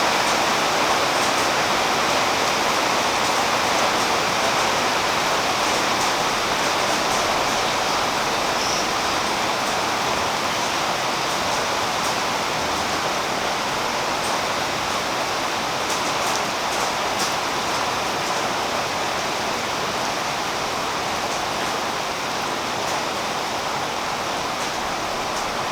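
Steady rain falling on a tree's leaves, an even hiss with faint scattered drip ticks.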